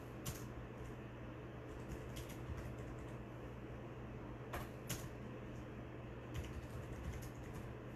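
Faint, irregularly spaced clicks, about a dozen, over a steady low hum.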